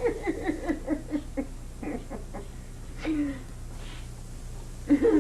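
People laughing in quick pulses that trail off over the first second or so, with a short vocal sound about three seconds in and another near the end.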